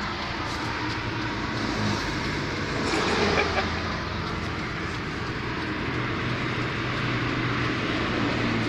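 Steady vehicle engine drone and rumble heard from inside the cab, with a few light clicks about three seconds in.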